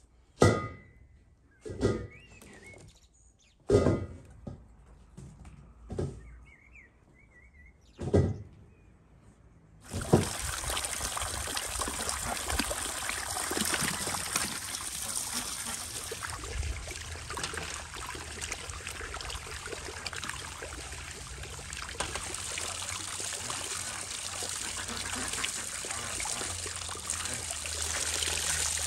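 A few knocks about two seconds apart as vegetables are set into a stainless steel colander, then from about ten seconds in, a steady rush of running water splashing over peppers and tomatoes being rinsed in the colander. Faint bird chirps in the quiet early part.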